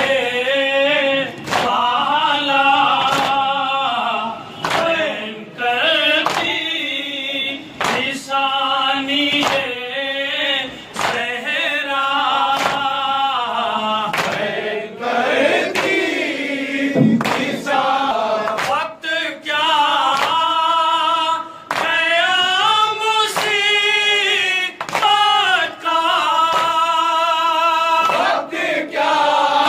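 Men chanting a nauha, the Urdu lament for Imam Hussain, into a microphone, voices overlapping in long held, wavering lines. A regular strike about once a second runs under the singing, the beat of hands striking chests (matam).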